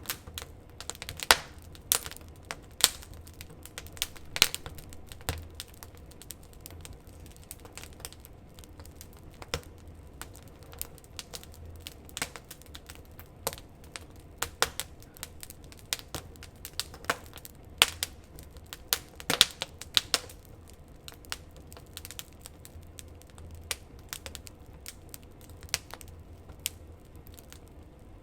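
Wood fire crackling: irregular sharp pops and snaps, sometimes several a second, over a faint steady low hum.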